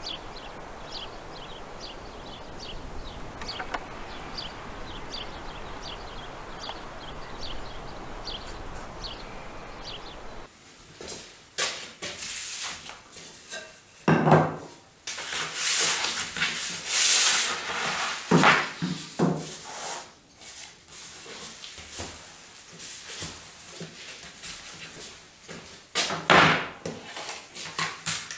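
Small birds chirping in a quick regular series over steady outdoor background. About ten seconds in this gives way to a sheet of paper rustling and crackling as it is unrolled and handled on a table, with several knocks as a wooden board is set down and moved on the tabletop.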